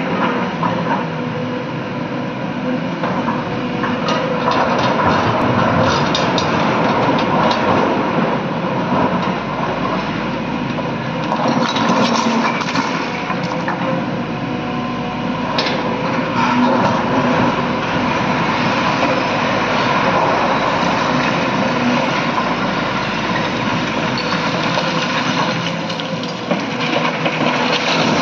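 Heavy diesel engine of a hydraulic excavator running under load as it digs and loads broken rock into a dump truck. Rocks clatter and knock against the bucket and the steel truck body at several points.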